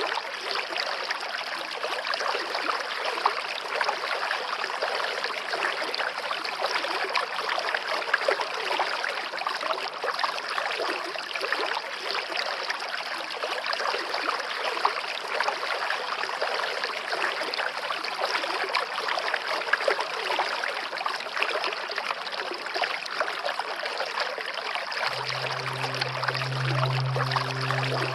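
A forest stream running steadily, trickling and gurgling over stones. About 25 seconds in, a low held note of soft music comes in over it.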